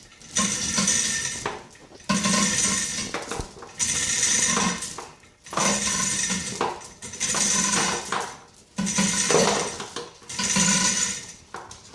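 Repeated scraping strokes on the metal of an old anvil, about seven in a row, each a little over a second long with short pauses between. The strokes strip paint and rust that electrolytic rust removal has loosened.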